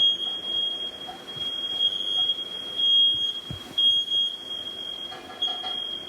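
Household smoke alarm sounding with one shrill, high-pitched tone that swells louder about once a second. It was set off by lingering smoke once the fan was switched off.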